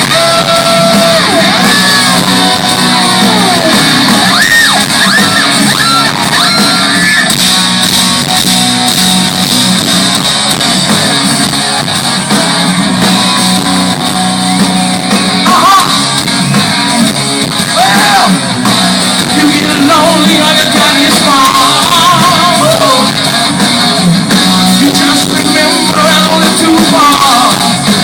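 Live rock band performing, loud amplified electric guitar, bass and drums with a male lead vocal singing over them.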